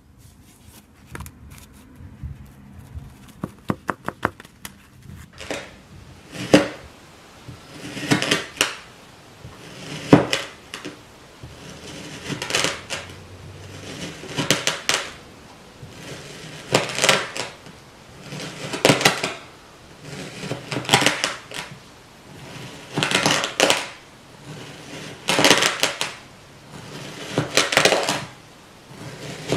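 Crunchy kinetic sand being sliced with a plastic knife: a crunch with each downward cut, about one every two seconds. Over the first few seconds there is a run of light clicks.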